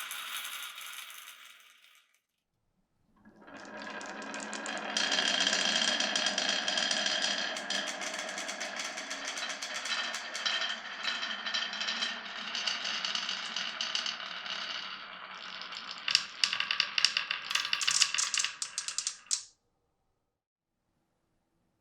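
Glass marbles rolling and clattering along a wooden marble run: a dense rattle of many small clicks that starts about three seconds in, with sharper, louder clicks over the last few seconds before it cuts off suddenly.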